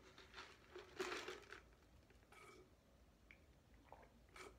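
Quiet, intermittent eating sounds: a few short bursts of chewing and of a cardboard fries carton being handled, the loudest about a second in.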